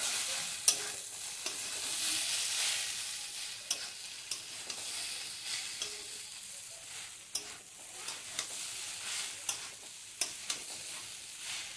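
Grated beetroot and coconut sizzling in a stainless steel pan while a spatula stirs and scrapes through it, with irregular sharp clicks of the spatula against the pan over a steady frying hiss.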